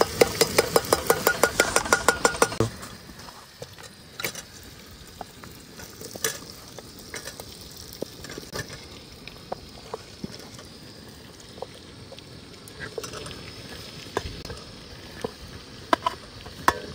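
Masala frying in a steel pressure cooker pot, a metal spoon stirring fast against the pot in quick regular knocks for the first two or three seconds. Then a quieter sizzle with scattered clinks of the spoon on the pot and on a steel plate as chopped vegetables are scraped in.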